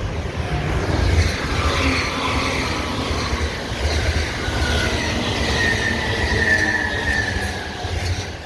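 Electric passenger train passing over a level crossing: a loud, steady rumble of wheels on rail. Midway through, a high-pitched whine falls slightly in pitch.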